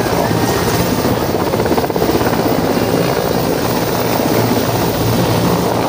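Two Mil Mi-17 military transport helicopters hovering low close by: loud, steady rotor noise with a fast, even beat of blade chop over the turbine whine.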